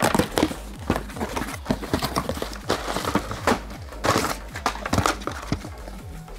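Cardboard parcel being opened and unpacked by hand: irregular rustling and crinkling of cardboard, plastic bag and paper wrapping, with many short clicks and knocks against the table.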